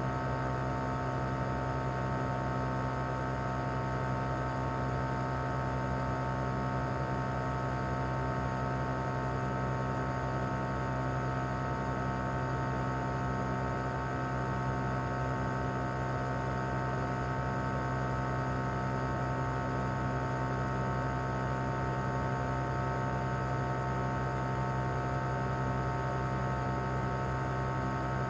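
Mitsubishi Heavy Industries SRC2221T air conditioner outdoor unit running in cooling mode: its single rotary inverter compressor and fan give a steady low hum, with a fainter steady whine above it.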